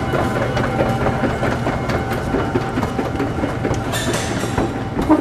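A station escalator running: a steady hum with a rapid, irregular clatter from the moving steps. A brief hiss comes in about four seconds in.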